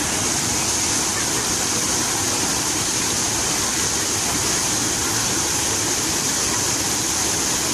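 Fountain water splashing down steadily, an even wash of splashing with a strong high hiss and no change in level.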